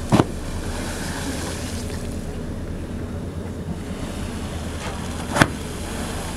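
Humpback whale's tail flukes slapping the sea surface: two sharp smacks about five seconds apart. Under them, the steady low hum of the whale-watch boat's engine, with wind and lapping water.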